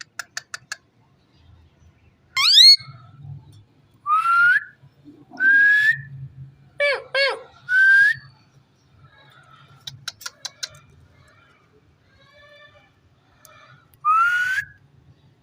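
Indian ringneck parakeet whistling: a string of short, separate rising whistles, with two quick runs of clicks, one at the start and one about ten seconds in.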